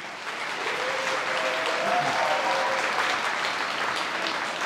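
Audience applauding, many hands clapping steadily together after a speech.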